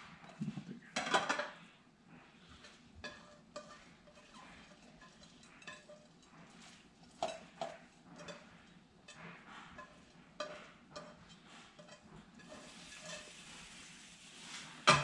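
Quiet kitchen handling: gloved hands moving soaked mushrooms and vermicelli around in a ceramic baking dish, with scattered small clicks and light clinks of a plate against the dish, and a louder knock about a second in.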